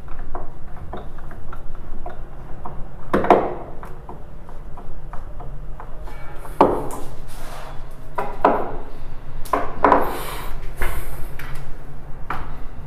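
Steel screws being driven by hand with a screwdriver through a metal L hinge into a wooden cabinet: a run of small irregular clicks and scrapes, with several louder knocks against the wood.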